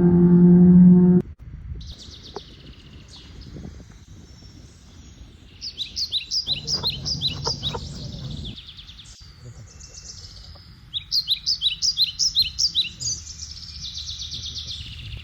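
A bird calling in fast runs of high chirps, about four a second, in two bursts a few seconds apart, over a low steady background rush. It opens with a loud steady pitched tone that cuts off suddenly about a second in.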